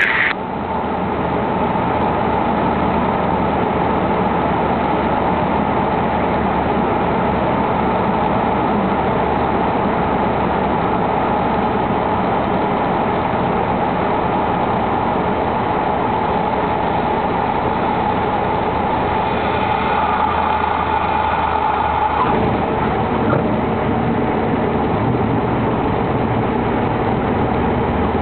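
Light training aircraft's engine and propeller droning steadily, heard from inside the cockpit, on a short-field approach to landing. About two-thirds of the way through the sound changes suddenly, its steady higher tone dropping away.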